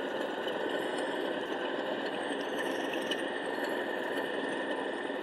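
Accurascale Class 37/0 model locomotive's ESU LokSound 5 sound decoder playing the Class 37's English Electric diesel engine idling steadily through the model's small speaker. It is running on its stay-alive, with the locomotive lifted off the track and no track power.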